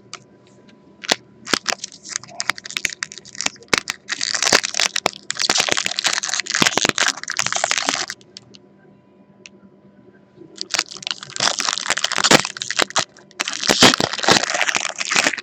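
Plastic foil wrapper of a trading card pack being torn open and crinkled by hand. It comes in two long stretches of crackling with a pause of about two seconds between them.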